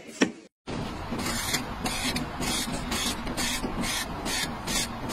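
A blade peeling skin off a fruit in quick, rhythmic scraping strokes, two to three a second, over a steady background hiss. The strokes start after a brief gap of silence about half a second in.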